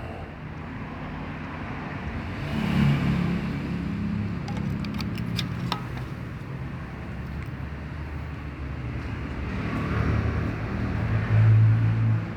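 Suzuki Ignis engine running, swelling briefly twice as it is revved. A few sharp clicks come in the middle.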